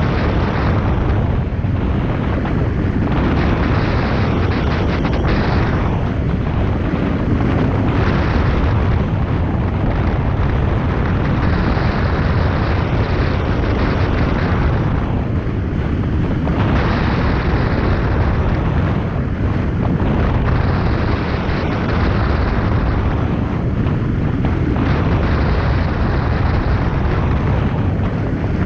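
Heavy wind rushing over the microphone in flight under a hang glider, a loud, even noise that gusts and eases irregularly.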